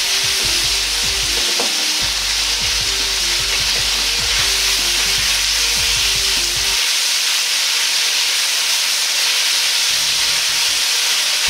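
Sliced pork searing and sizzling in oil in a hot wok as it is stir-fried until no red remains, a steady dense hiss with scattered light clicks.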